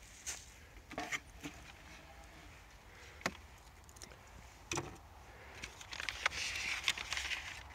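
Wooden trail register box being handled and opened: scattered sharp knocks and clicks of wood, then a spell of rustling near the end.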